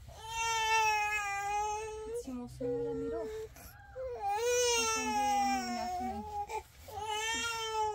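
A young child crying: three long cries with short breaks between them.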